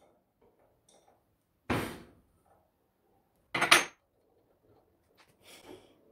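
Metal tools and parts clanking on a workbench: two sharp metallic clanks about two seconds apart, then faint handling noise near the end.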